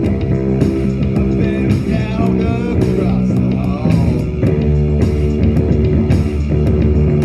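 Rock music played on guitar and bass guitar, with a wavering, bending lead line from about one and a half to three seconds in.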